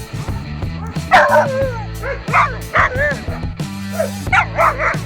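West Siberian Laika hunting dog barking and yelping excitedly in repeated high calls, a cluster about a second in and a quick run near the end, over background music with steady low notes.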